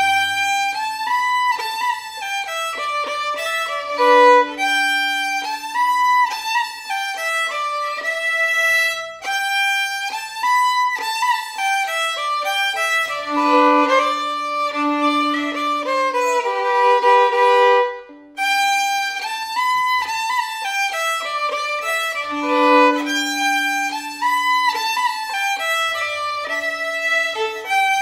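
A solo fiddle bowing the melody of a fiddle tune, note after note, with a short break about two-thirds of the way through.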